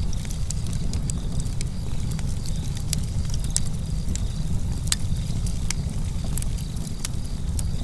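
Campfire burning, with irregular sharp crackles and pops from the wood over a steady low rumble of flames and breeze. Crickets chirp faintly and steadily in the background.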